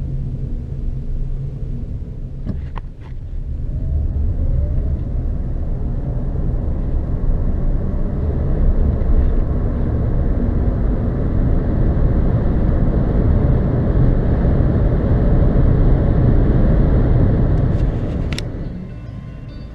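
Renault Zoe electric car on the move, heard as a low road-and-wind rumble with little motor sound. The rumble builds from about three seconds in and falls away near the end, with a sharp click just before it drops.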